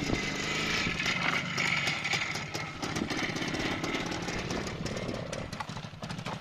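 Minsk motorcycle engine running as the bike is ridden in first gear, its buzz slowly growing fainter toward the end.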